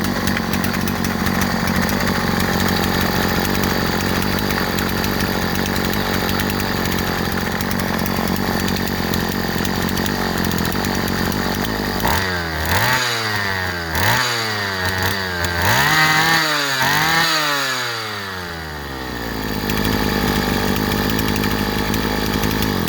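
Husqvarna 45 two-stroke chainsaw engine running steadily, then revved up and down about five times in quick succession around the middle, before settling back to steady running.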